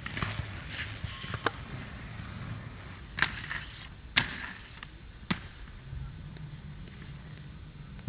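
Inline skate wheels rolling on hard ground, with four sharp clacks of skates hitting and landing, and a short scraping hiss after the second clack.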